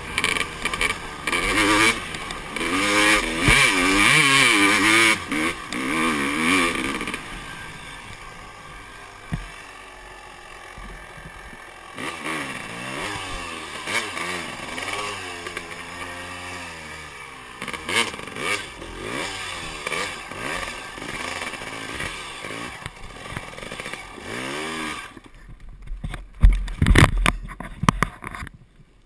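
A 250 cc two-stroke motocross bike engine revving up and down hard as it is ridden through deep sand. Near the end the engine note drops away, and there are heavy, irregular thumps and scraping as the bike goes down in the sand.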